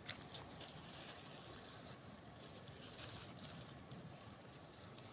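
Faint rustling and crackling of grass and dry leaves being pushed aside by hand, in irregular small ticks with a sharper click at the very start.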